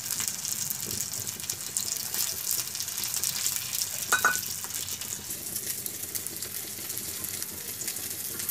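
Paniakhia fish sizzling and crackling as they shallow-fry in hot oil in a pan, with a brief high squeak about four seconds in.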